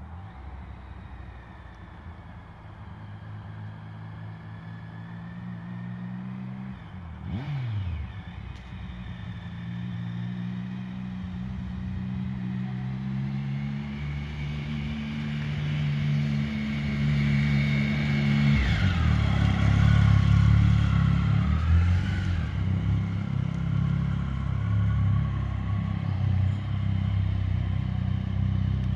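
Motorcycle engine running as the bike approaches, growing steadily louder, with a short sweep in pitch about a quarter of the way through. About two-thirds through the sound jumps louder and lower as the bike comes closer.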